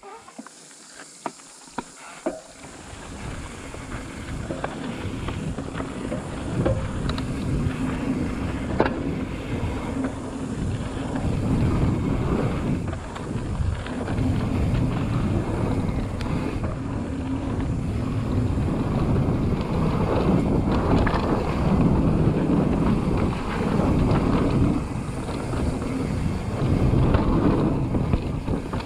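Mountain bike riding fast down a dry dirt trail: wind buffeting the camera's microphone over the rumble and rattle of the tyres and bike on loose ground, building as speed picks up in the first few seconds. A few sharp clicks sound near the start.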